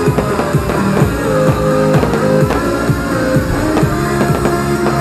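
Loud recorded rock-style music with guitar and drums, the soundtrack of a pyromusical fireworks show played over loudspeakers.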